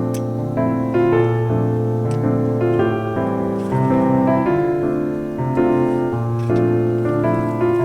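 Background music led by piano or electric piano, a gentle melody over a steady bass line.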